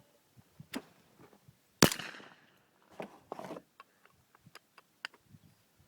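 A single shotgun shot at a hand-thrown clay target about two seconds in, its report echoing and dying away over about half a second.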